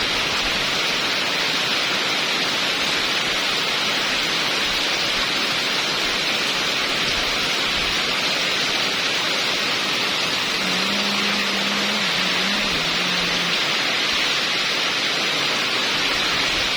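Heavy rain pouring down in a steady, even hiss. A faint low hum comes in for a few seconds in the middle.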